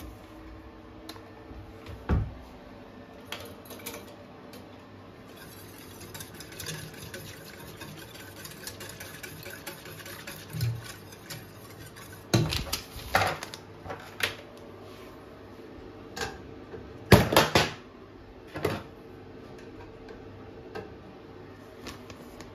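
Wire whisk stirring a thick cheese sauce in a stainless steel pot, rattling quickly against the pot for several seconds. Several louder metal clanks follow, the loudest about two-thirds of the way in.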